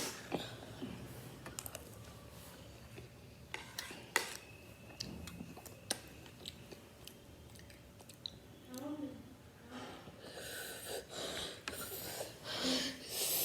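Someone eating noodles: scattered clicks and light knocks of utensils against a bowl, with chewing. From about 10 s in there are repeated short, breathy hisses of air drawn and blown through the mouth, as from a burning-hot chili mouth.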